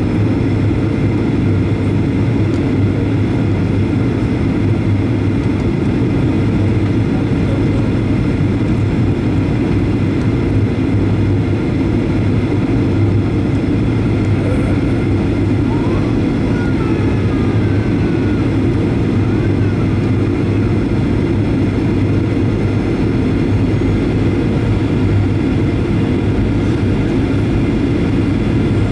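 Cabin noise of a Boeing 737-800 in flight on approach, heard at a window seat beside the wing: the steady drone of its CFM56-7B turbofan engines and the airflow, even and unchanging, with a low hum and a few thin steady tones above it.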